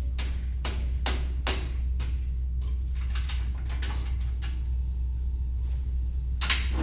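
A series of short clicks and knocks as the saw's length stop is slid into place and clamped tight, over a steady low hum. The loudest knock comes near the end.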